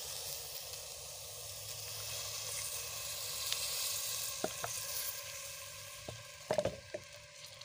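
Cooking oil poured onto chopped red onions in a hot metal pot, sizzling steadily. The sizzle swells a few seconds in and eases off near the end, with a few light knocks.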